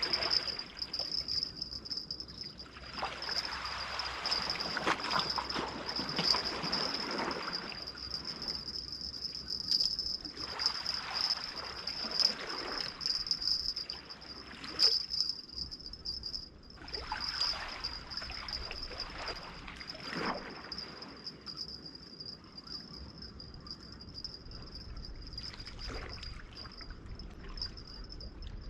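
Water sloshing and splashing in irregular swells every few seconds, with a steady high-pitched whine running underneath.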